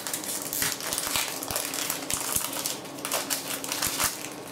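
Foil wrapper of a Pokémon Sun & Moon Burning Shadows booster pack crinkling and tearing as it is ripped open by hand: a run of irregular crackles and rips.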